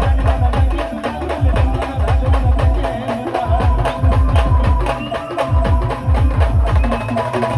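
Live village band playing a song: fast, heavy drumming with a held melody line over it. The drums drop out briefly twice.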